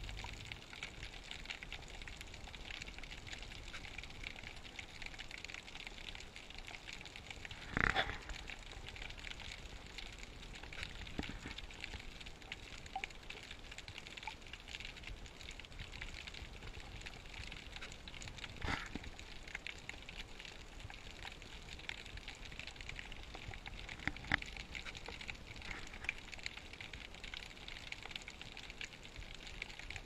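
Faint underwater ambience from the diving camera: a steady hiss with fine crackling, broken by three brief louder knocks spread through.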